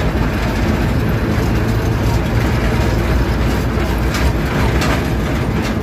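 Military truck's engine running steadily with a deep, low hum, heard from inside the cab.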